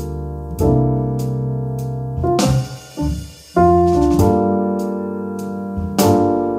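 Background music of slow piano chords, each struck and left to ring, with a brief rushing swell and a dip about halfway through.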